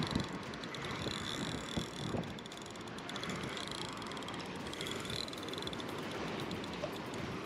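Wind buffeting the microphone in a steady rush, with a few light knocks near the start and around two seconds in.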